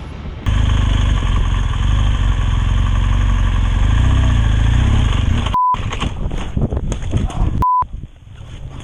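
Motorcycle running on a ride, its engine rumble mixed with heavy wind noise, starting suddenly about half a second in. Two short high beeps cut in near the end, after which the sound drops quieter.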